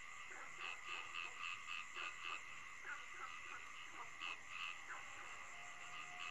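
Frogs calling in short, repeated croaks, about three a second, over a steady high drone. The whole is faint.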